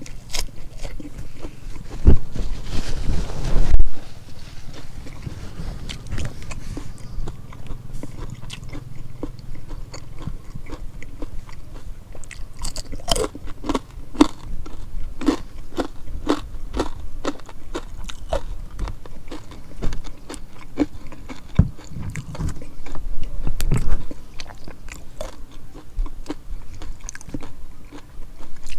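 A person chewing and crunching food close to the microphone: a run of short crisp clicks and mouth sounds, with a few loud low thumps near the start and again about three quarters of the way through.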